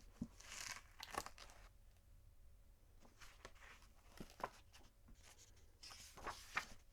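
Paper book being handled, its pages turned with dry rustles and soft taps, in about four separate bursts.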